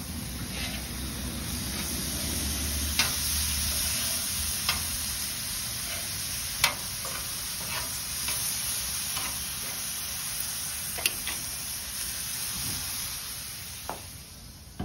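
Pork steaks, country ham and bologna sizzling in oil on a Blackstone flat-top gas griddle, with a few sharp clicks of metal tongs against the steel plate. Near the end the sizzle grows quieter as the griddle's hood is lowered over the food.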